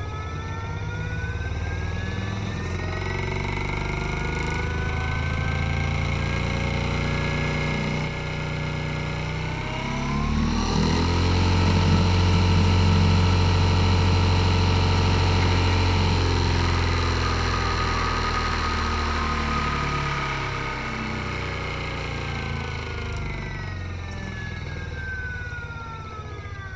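Small motor of a modified toy Bosch washing machine on a fast spin: a whine rises in pitch as it spins up, holds steady and is loudest around the middle, then falls in pitch as the drum winds down near the end.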